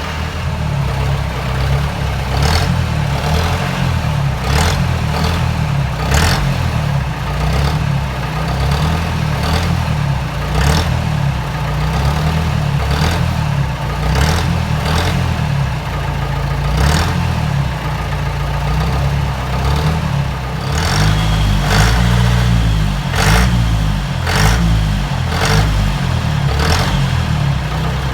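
Mahindra DI diesel engine of a modified Willys-type jeep, heard at the exhaust, running with a deep rumble and repeated short throttle blips every second or two.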